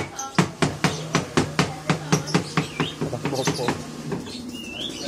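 A knife chopping rapidly on a wooden cutting board, about four chops a second, stopping a little before the end. Near the end comes a short bird-like chirp over a steady low hum.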